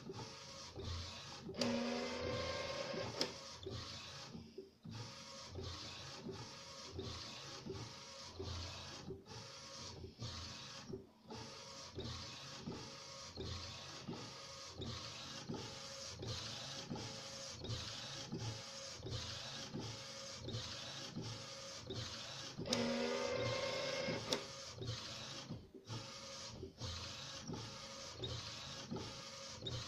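Homemade direct-to-garment printer built from an Epson SureColor SC-P600 inkjet, printing: the print-head carriage shuttles back and forth with a steady, even rhythm of clicks. A louder motor whine comes twice, about two seconds in and again about three quarters of the way through.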